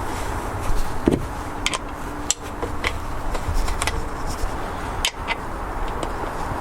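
Scattered clicks and light knocks of metal tools and parts being handled, about eight to ten in all, over a steady low rumble.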